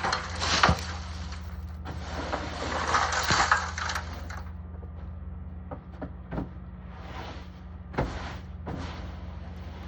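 Scraping and sliding on a barn roof, two long scrapes in the first four seconds, then a few separate knocks and thuds.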